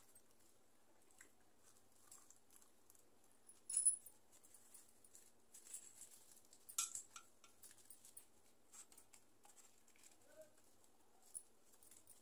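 Faint eating sounds: roti being torn by hand and chewed, heard as scattered small clicks and crackles, the sharpest about four seconds in and again about seven seconds in.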